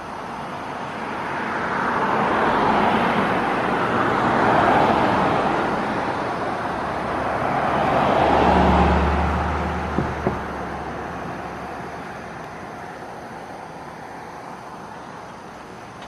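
Cars passing on a two-lane road: tyre noise swells up and fades away, and a second vehicle with a deeper engine rumble goes by about eight to nine seconds in.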